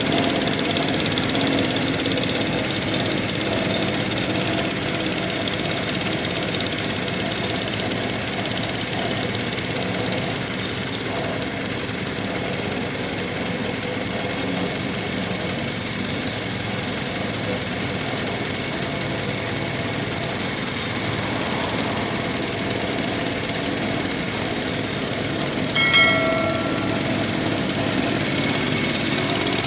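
Walk-behind vibratory roller running steadily, its small engine and vibrating drum compacting freshly laid asphalt patching. Near the end a brief horn-like tone sounds once.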